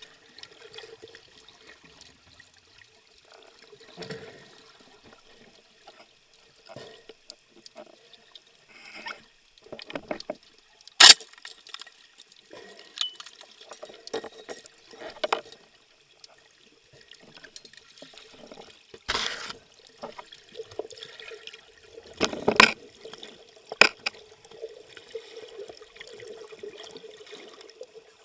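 Underwater sound picked up by a submerged camera: a low steady water hum with scattered clicks and knocks. A sharp loud click comes about a third of the way in, and heavier knocks come past the middle.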